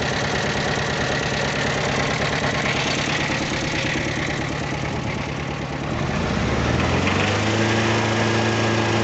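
Toyota diesel forklift engine running with a knock, bad enough that the owner judges it due for overhaul. About six seconds in its speed rises, then holds steady at a higher pitch.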